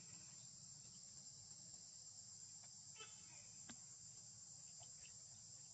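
Faint, steady high-pitched drone of insects, with a few brief faint chirps and a click about three seconds in.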